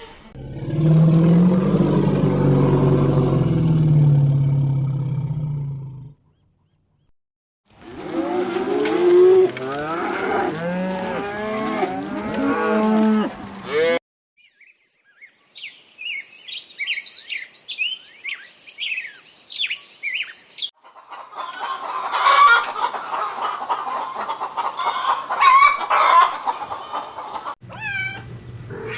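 A cow mooing in one long low call lasting about five seconds. After a short silence, chickens cluck for several seconds, followed by high chirping from small birds and then more farmyard bird calls.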